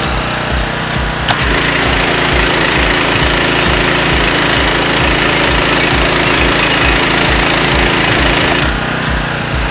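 Simpson PS4240H pressure washer's Honda GX390 engine running steadily. About a second in, the spray-gun trigger is pulled and a loud hiss of high-pressure water through the white 40-degree fan tip starts. The hiss cuts off near the end when the trigger is released.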